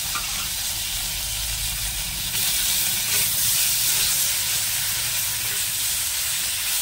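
Tomato pieces sizzling in hot oil and spice paste in a kadai as they are stirred with a steel spatula: a steady frying hiss that gets a little louder about two and a half seconds in.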